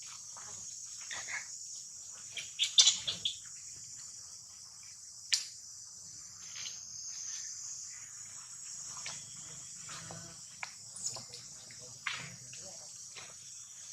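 Steady high-pitched insect chorus with scattered short clicks and knocks, the loudest a few seconds in.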